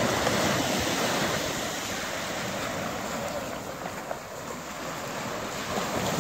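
Small waves breaking and washing up onto a sandy beach in a steady rush.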